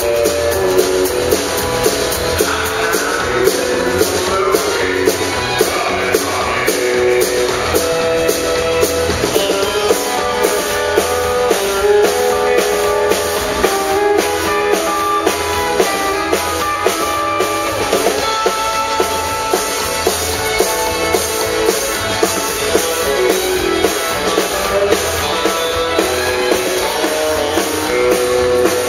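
Live country band playing an instrumental passage: electric and acoustic guitars with fiddle over a steady drum-kit beat.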